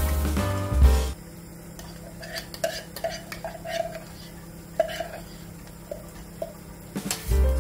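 Metal spoon scraping and clicking inside a tin can of palm nut paste, a string of short squeaky scrapes and light taps. Background music stops about a second in and comes back near the end.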